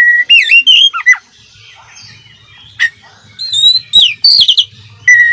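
Oriental magpie-robin (kacer) singing: a held whistle followed by quick sweeping whistled notes in the first second, a lull, then another burst of rising and falling notes about three and a half seconds in.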